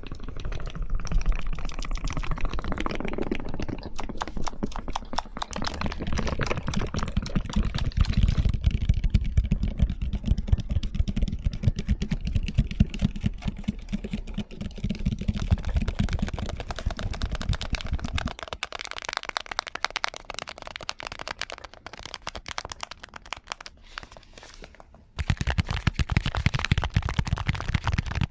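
Layered ASMR tapping: rapid fingertip and fingernail taps on objects, several tapping tracks overlapping at once. The mix thins about 18 seconds in and switches abruptly to a louder layer of taps about 25 seconds in.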